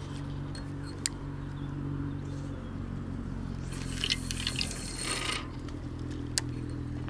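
Float rod and spinning reel being cast: a click about a second in, then line hissing off the spool during the cast at about four to five seconds, and a sharp click near the end as the bail is closed. A steady low hum runs underneath.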